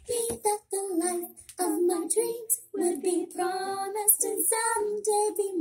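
A young girl singing unaccompanied in short phrases with brief pauses between them.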